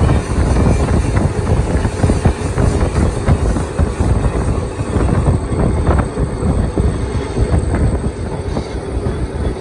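Workshop metalworking machinery running loudly, a continuous low rumble with a dense, irregular clatter of knocks and rattles.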